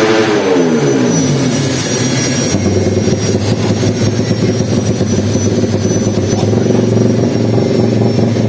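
Race-tuned Yamaha MX King underbone's single-cylinder four-stroke engine blipped, the revs falling away over about two and a half seconds, then settling to a steady idle.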